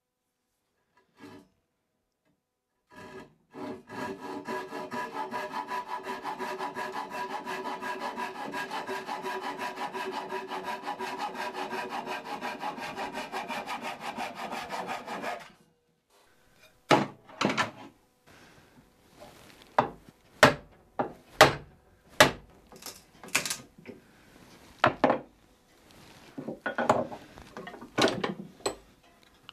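Japanese pull saw cutting through a turned wooden chair post held in a bench vise, in rapid, even strokes with a ringing tone from the blade; the sawing stops suddenly about halfway through. It is followed by a string of sharp wooden knocks.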